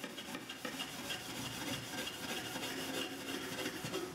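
Horsehair shoeshine brush buffing a paste-wax finish on a cherry and maple box lid: rapid back-and-forth strokes of the bristles scrubbing over the waxed wood, stopping near the end.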